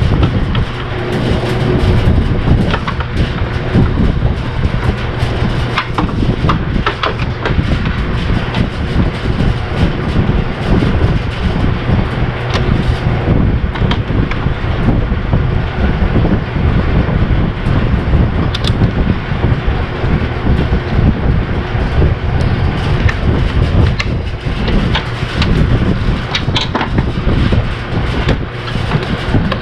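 2004 Mazda MPV's 3.0-litre V6 running with a misfire on cylinder 4, a steady, loud, rough rumble with scattered ticks. The owner puts the misfire down to the cylinder's fuel injector connection, since a new coil and spark plug did not cure it.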